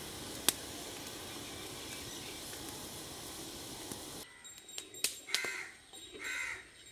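A crow cawing twice near the end, after a steady rushing noise with a single sharp click cuts off about four seconds in.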